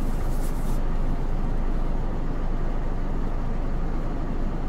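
Truck's diesel engine running steadily at low revs, a continuous low rumble heard from inside the cab while the truck is being manoeuvred.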